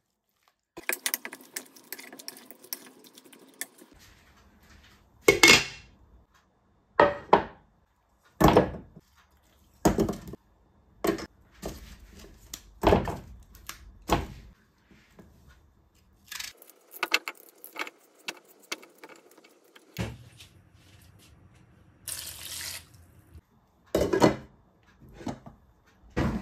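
Hands squishing yogurt-coated chicken pieces in a glass bowl, then a string of sharp knocks as whole tomatoes, onions and a green chili are set into a metal saucepan. Later there is a brief hissing rush like water running into the pot, with more scattered knocks.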